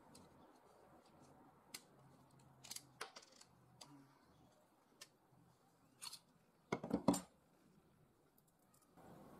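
Scattered small clicks and knocks of a folding saw being taken apart by hand: a washer and bolt, the steel blade and the wooden handle handled and set down on a wooden workbench. A quick cluster of louder knocks comes about seven seconds in.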